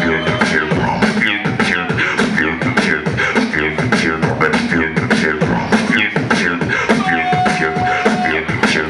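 Solo beatboxing amplified through a stage microphone and PA: a fast, dense beat of vocal kick, snare and hi-hat sounds mixed with pitched vocal effects, with one held steady note near the end.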